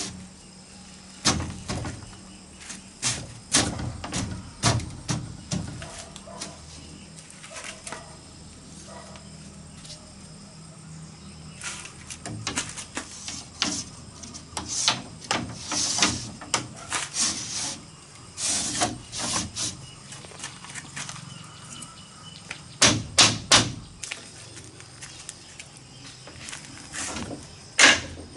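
Bamboo poles knocking and clattering against one another and against a woven bamboo panel as they are handled and stood upright. The knocks come in irregular runs, with a quieter stretch in the middle and a few louder knocks near the end.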